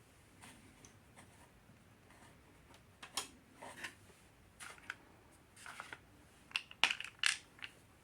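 Light clicks and scrapes of hand work on a small mower engine as the carburetor's mounting bolts are started by hand, with the loudest cluster of clicks near the end.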